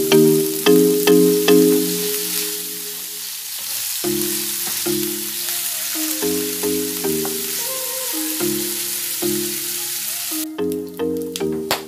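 Diced pork sizzling as it fries in hot oil in a non-stick pan, with a spatula stirring the pieces; the sizzle cuts off suddenly near the end. Background music with light plucked melodic notes plays over it.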